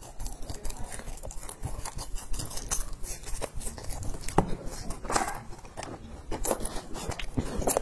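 Close-miked chewing of a crunchy puffed-grain and peanut bar: a dense run of small crackles and crunches, with a few louder crunches.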